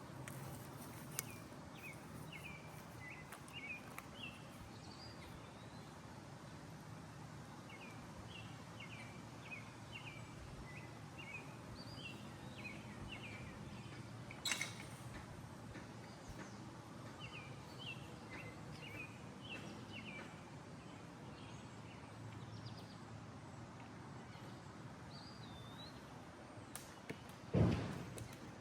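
Songbirds chirping and singing over a faint low rumble, with a sharp knock about halfway through and a louder thump near the end.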